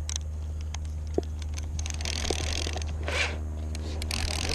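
Steady low hum of a boat's engine, with scattered clicks and knocks of handling on deck and two short hissing rushes, about two and four seconds in.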